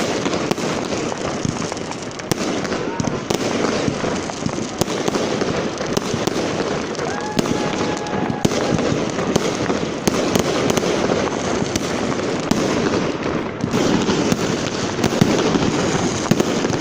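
Fireworks going off in a dense, continuous barrage of rapid crackles and pops.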